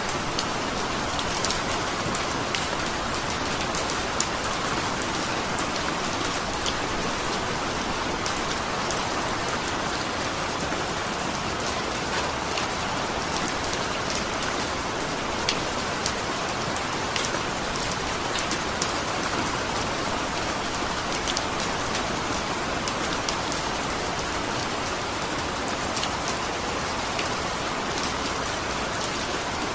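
Steady rain falling, a constant hiss with many small drops pattering and ticking on a surface.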